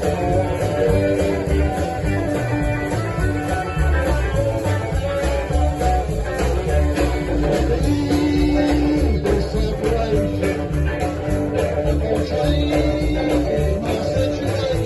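Live blues-rock band playing an instrumental passage: guitar over bass and drums with a steady beat.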